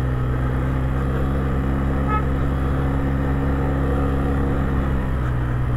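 ATV engine running at a steady pitch and load while the quad is ridden, a constant low drone.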